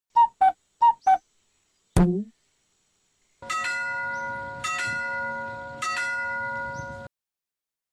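Four quick high blips and a single knock, then a bell-like chime struck three times about a second apart. The chime rings on between strikes and cuts off suddenly.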